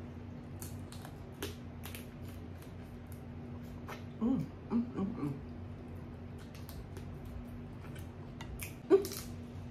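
Close-up eating sounds of snow crab meat: repeated wet lip smacks and chewing clicks. A few short hummed "mm" sounds come about four to five seconds in, and a louder smack with a brief "mm" near the end, over a faint steady hum.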